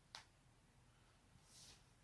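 A knee joint cracking: a single short, sharp pop just after the start.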